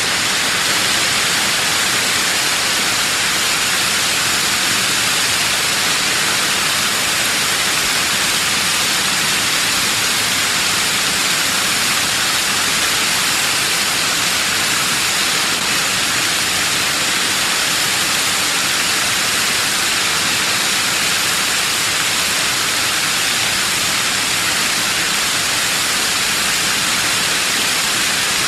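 Waterfall spray: a steady, even hiss of falling water and mist, brighter than it is deep, with no change or let-up.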